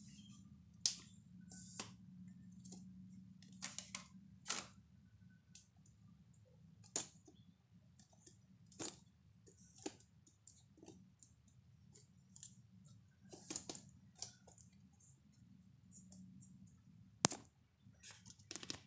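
Scattered, irregular sharp clicks and knocks, the loudest about a second in and near the end, over a faint steady low hum.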